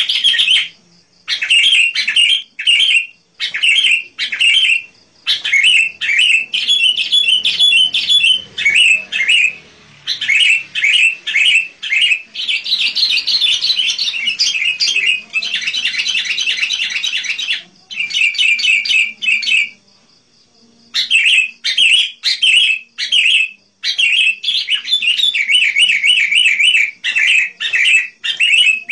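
Sooty-headed bulbul (kutilang) singing energetically in rapid runs of short, bright chirping notes, broken by brief pauses, the longest about two-thirds of the way through.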